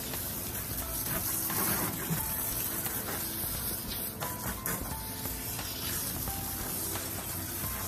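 Background music over a garden hose spray nozzle spraying water onto a dog's soapy coat, a steady hiss of water.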